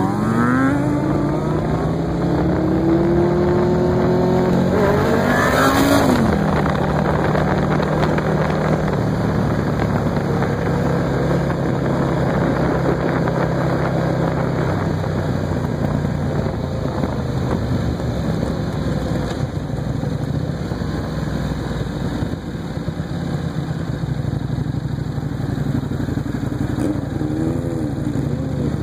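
Sport motorcycle engines, a Buell 1125R V-twin and a Yamaha R6 inline-four, heard from on board a moving bike. The engine pitch climbs over the first few seconds as they accelerate and drops suddenly about six seconds in. After that a steady cruising drone runs under wind and road noise, with a short rev up and back down near the end.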